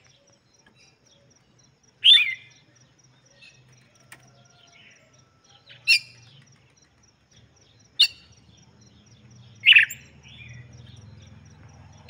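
Red-cowled cardinal (galo de campina) giving four loud, short chirps, spaced about two seconds apart.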